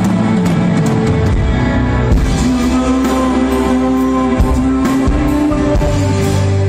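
Rock cover band playing live at a sound check: electric guitar, bass and drum kit, with held notes over a steady drum beat.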